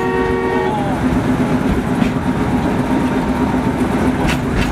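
Small forest-railway train heard from on board: its horn ends less than a second in, then a steady rumble and clatter of the wheels on the narrow-gauge track, with a couple of sharp knocks.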